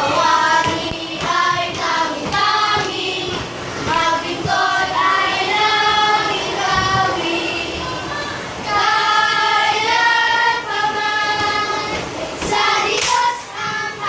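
A class of children singing together in unison, a simple song of held notes stepping up and down in short phrases. Two sharp claps or knocks come near the end.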